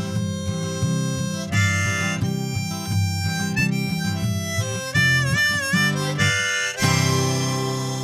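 Harmonica in a neck rack playing the melody over a strummed acoustic guitar, with bent, wavering notes about five seconds in. Near the end a last guitar chord is struck and left to ring out, closing the song.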